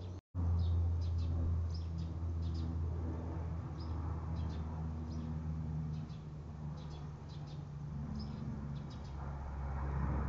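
Helicopter's low steady drone overhead, with small birds chirping on and off.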